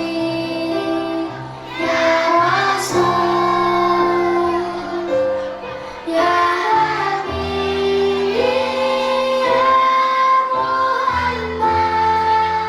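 Children's choir singing an Islamic devotional song in long held notes over an instrumental backing.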